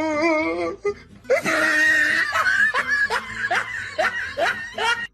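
A person laughing hard: a wavering, pitched cry at first, then a long burst of rising "ha" strokes, about three a second, that stops abruptly.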